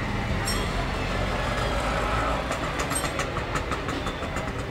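A motor vehicle engine idling nearby, a steady low rumble, with a fast regular ticking of about five a second from about three seconds in.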